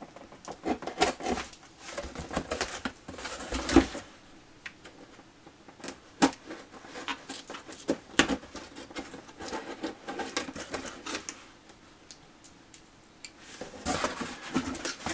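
Plastic model kit and its box and paper being handled: irregular rustling with light clicks and knocks, the sharpest click about six seconds in, and a brief lull near the end.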